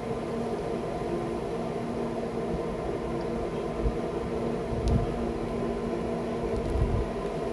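Recteq Bull 700 pellet grill running, its fan giving a steady hum with a few steady tones, on its low setting soon after start-up. A couple of short low thumps about five and seven seconds in.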